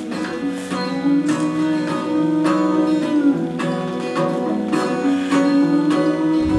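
Instrumental music: picked notes on a plucked string instrument such as an acoustic guitar, over a held tone.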